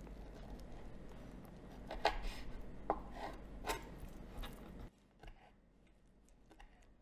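Chef's knife cutting the edges of raw turkey shanks on a wooden cutting board, with a handful of sharp knocks of the blade on the board between about two and four and a half seconds in. The sound drops away suddenly near five seconds, leaving only faint ticks.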